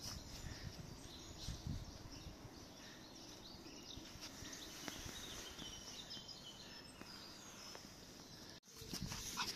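Outdoor garden ambience: a steady low rumble with faint, scattered bird chirps. The sound cuts out for a moment near the end.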